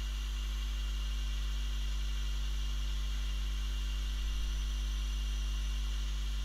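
Steady low electrical hum with a faint hiss over it, unchanging throughout.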